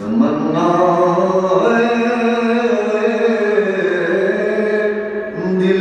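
A man's voice chanting soz, a Shia elegy, unaccompanied, in long held notes that slide slowly up and down in pitch. There is a short break near the end before the next phrase begins.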